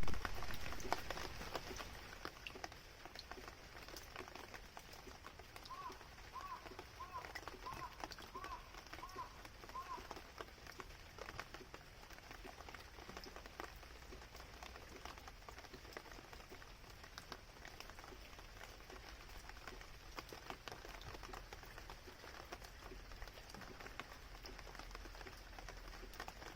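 Quiet outdoor ambience with a steady hiss and many faint scattered ticks, like light rain or drips. About six seconds in, an animal gives a run of seven short, identical chirps, roughly one every half second, over about four seconds.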